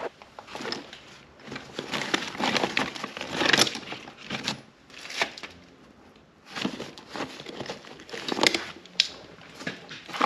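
Hands working thin low-voltage wire with hand tools: irregular crinkling and rustling, with sharp clicks.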